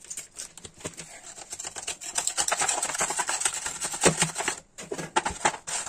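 Clear plastic bag crinkling and rustling as shami kababs are handled and packed into it, growing busier about two seconds in, with a short pause a little after four seconds.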